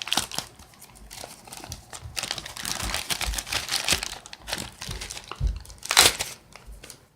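A mailed package being cut and pulled open: its packaging crinkles and tears, with one sharp, louder crackle about six seconds in.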